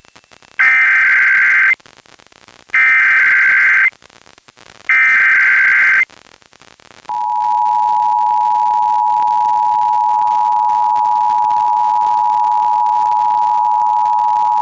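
Emergency Alert System header for a Required Monthly Test over FM radio: three one-second bursts of screechy SAME digital data tones, evenly spaced about a second apart. About seven seconds in the steady two-tone EAS attention signal (853 and 960 Hz together) begins and holds.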